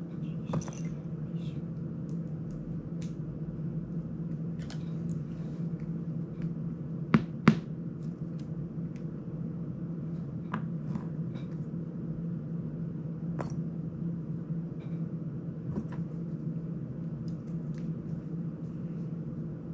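Small plastic and metal parts of an FPV drone and small hand tools being handled: scattered light clicks and ticks, with two sharp clicks in quick succession about seven seconds in, over a steady low hum.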